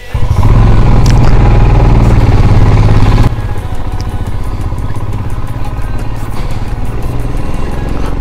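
A tractor engine runs loud and close for about three seconds. It cuts off sharply to the steadier, quieter running of a Royal Enfield Himalayan's 411 cc single-cylinder engine as the motorcycle rides along.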